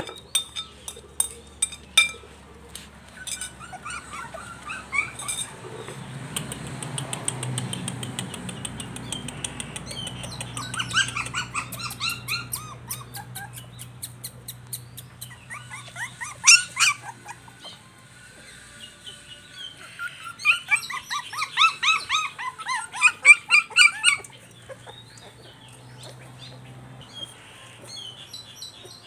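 Young puppies squealing and whimpering in runs of short, high-pitched cries, loudest in clusters about a third of the way in and again around two-thirds of the way through, as they crowd a bowl of food.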